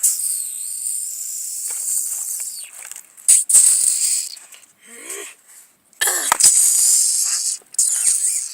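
A harsh, high-pitched hissing, rushing noise that cuts in and out in several bursts. The longest burst runs for the first two and a half seconds, and the others come about three seconds in, about six seconds in and near the end.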